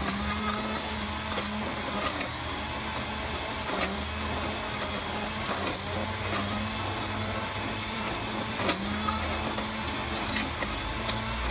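Commercial immersion blender running in a saucepan, pureeing pistachios simmered in heavy cream into a sauce. A steady motor hum that dips briefly in pitch a few times, with small clicks.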